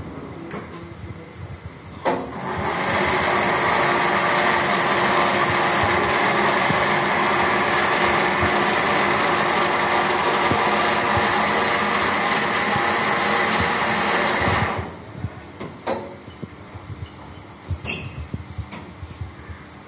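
Mattress tape edging machine with a Futon 300 UB looper sewing head, running steadily as it stitches binding tape along a mattress edge. It starts with a click about two seconds in, runs for about twelve seconds, then cuts off suddenly, and a few clicks and knocks follow.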